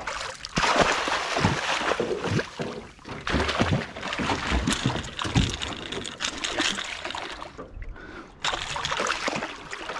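Water splashing and sloshing at the side of an aluminium boat as a hooked Spanish mackerel is pulled to the surface, in uneven loud stretches with a short lull near the end.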